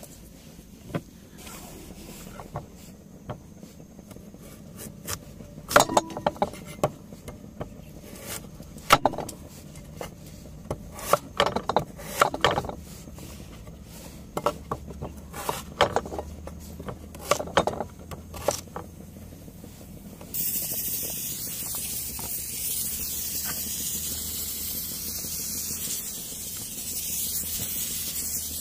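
Cleaver chopping potatoes on a wooden chopping board: a run of irregular knocks. About two-thirds in, a steady hiss starts suddenly: the pressure cooker venting steam as it comes up to pressure.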